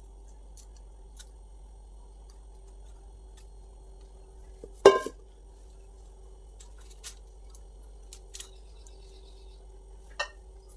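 Kitchenware being handled: one loud metallic clank with brief ringing about five seconds in, then a few lighter clicks and knocks, over a steady low hum.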